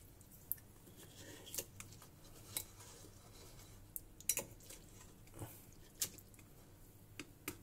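Metal fork clinking and scraping against a soup plate as a block of instant noodles is stirred and turned in water; light, scattered clinks about once a second.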